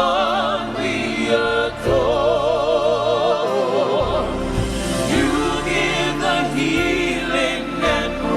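Live gospel worship music: voices holding long notes with vibrato, with a choir, over steady instrumental accompaniment.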